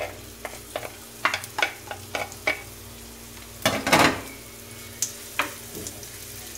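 Wooden spoon knocking and scraping chopped onion off a ceramic plate onto a tawa, several sharp taps in quick succession, then a louder scrape as the onion is pushed around in the oil about four seconds in, over a faint sizzle of onion frying.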